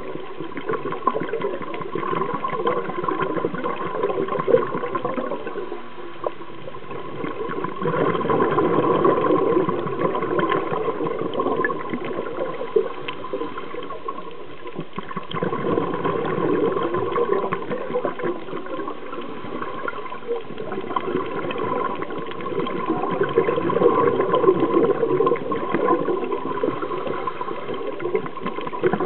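Underwater recording of a scuba diver's regulator breathing: exhaled bubbles gurgle and swell for a few seconds about every seven or eight seconds, with a steady thin hum underneath.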